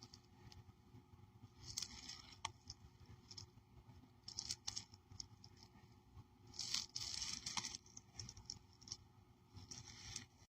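Faint, scattered rustling and scraping noises in short bursts, with a few sharp clicks.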